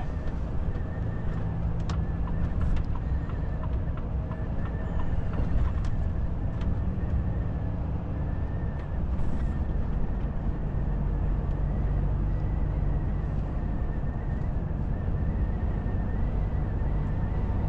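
Volvo FH truck heard from inside its cab while driving on a motorway and picking up speed: a steady diesel engine hum with tyre and road rumble.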